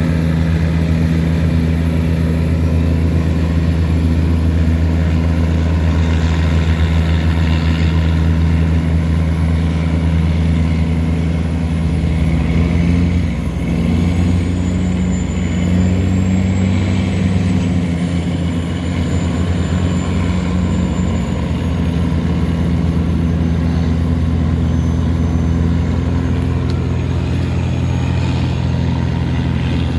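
A Thai river tugboat's heavy diesel engine running loudly as it tows a string of cargo barges against the current. It is a steady, deep drone, its pitch shifting slightly midway.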